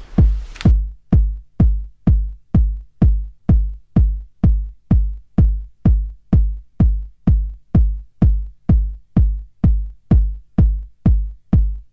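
Electronic music made of a steady drum-machine kick beat, a little over two beats a second, each beat a deep thud with a sharp click on top.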